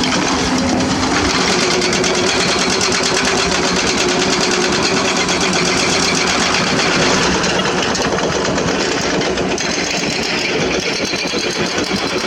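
Diesel engine of a heavy excavator running steadily with a fast, even clatter, easing off slightly about two-thirds of the way through.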